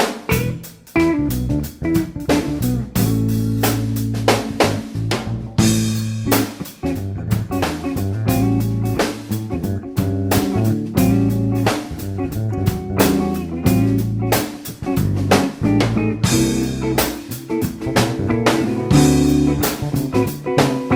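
Background music: guitar over a drum kit keeping a steady beat, in a blues-rock style.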